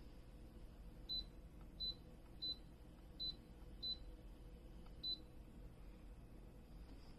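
Six short high-pitched electronic beeps, mostly about two-thirds of a second apart, from the ROSEKM cool-mist humidifier's control panel as its buttons are pressed. A faint low hum lies underneath.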